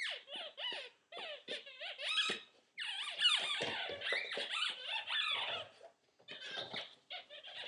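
A puppy's squeaky toy squeaked over and over in quick, rapid runs as she chews and shakes it, nearly continuous in the middle with a brief pause near the end.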